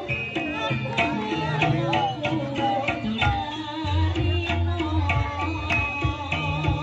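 East Javanese jaranan gamelan music played live: kendang hand-drum strokes over ringing tuned metal percussion, with a deep sustained low tone entering about four seconds in.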